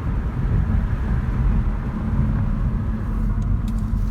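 Steady low rumble of a Kia Stinger 2.0T at a steady cruise, engine and tyre noise heard from inside the cabin.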